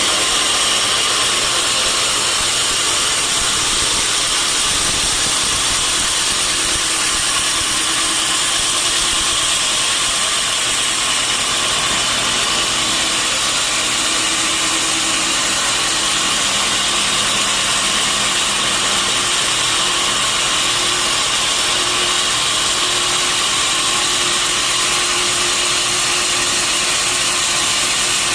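Sawmill saw running steadily, a loud, even noise with a faint motor hum beneath it.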